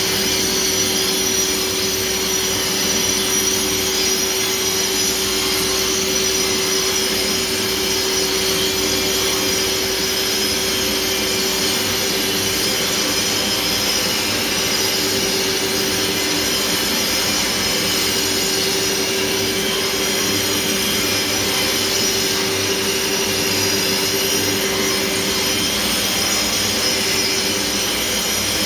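Makita 15-amp 7-inch angle grinder grinding a concrete floor, with a Craftsman shop vacuum running alongside to pull up the dust: a steady, loud whine over a rushing noise.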